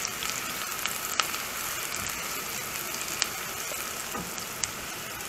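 Diced onion and garlic sizzling steadily in melted butter in a nonstick frying pan over low heat, with a few light clicks of a spatula against the pan as it is stirred.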